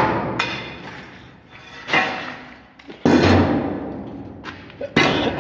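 A door being opened: a series of knocks and thuds, the loudest with a low boom about three seconds in.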